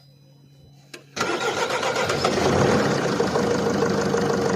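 Mercedes Sprinter's 2.2-litre OM611 four-cylinder diesel starting suddenly about a second in and running steadily. The engine carries a noise that the mechanic suspects comes from the gearbox side or the flywheel.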